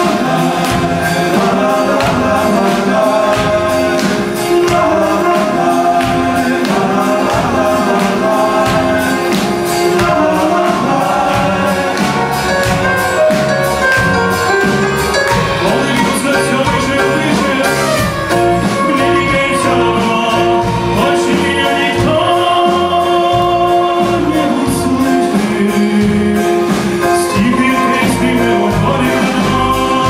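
Live band music with a male lead vocal singing over a steady beat.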